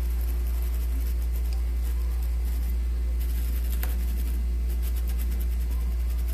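A steady low hum, unchanging throughout, with one faint click about four seconds in.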